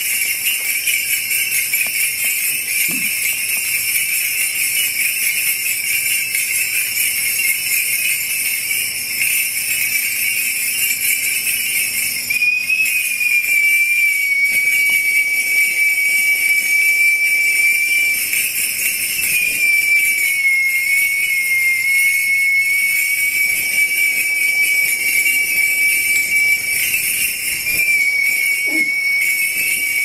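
Kagura suzu shrine bells shaken continuously, a steady dense jingling. About twelve seconds in, a high, thin whistling tone joins and is held, dipping slightly in pitch now and then.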